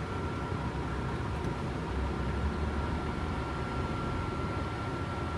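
Steady low rumble of a truck's engine and tyres heard from inside the cab as it moves slowly, with a thin steady whine above it.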